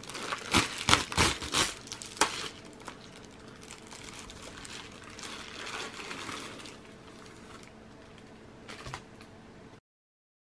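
Plastic Amazon bubble mailer being torn open, with several sharp rips in the first two seconds, then softer crinkling of the plastic as it is handled. The sound cuts to dead silence near the end.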